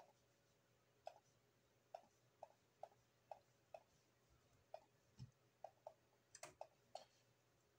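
Faint computer mouse clicks at an uneven pace, about a dozen, some in quick pairs, with one soft low thump a little past halfway.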